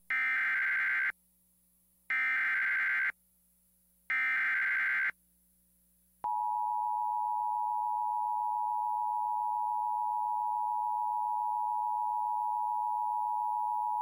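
Emergency Alert System tones. Three one-second bursts of SAME header data come two seconds apart, then from about six seconds in the steady two-tone EAS attention signal holds for about eight seconds. The attention signal announces a severe thunderstorm warning about to be read.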